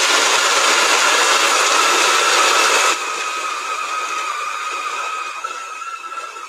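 Food processor running loudly, chopping whole almonds with raisins, cacao powder and honey; the hard whole almonds are what make it so loud. About three seconds in it drops to a quieter steady whir with a motor whine.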